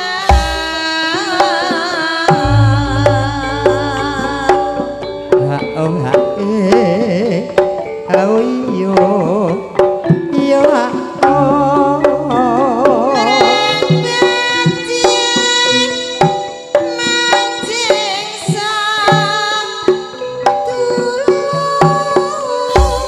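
Live campursari music: a sinden sings with strong vibrato over Javanese hand drums (kendang) and deep sustained bass notes.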